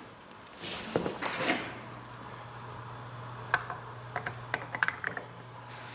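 Light handling in a machine shop while a dial indicator setup is moved along a mill table: a brief rustle and knock about a second in, then a steady low hum, with a run of light sharp metallic clicks in the second half.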